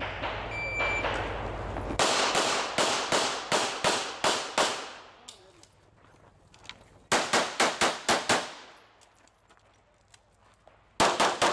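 Electronic shot timer gives a brief start beep, then a pistol is fired in fast strings: about eight quick shots, a pause of a couple of seconds, about six more, and a couple more just at the end.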